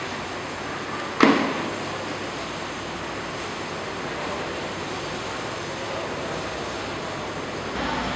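A bag set down with one sharp thump about a second in, over a steady background hiss.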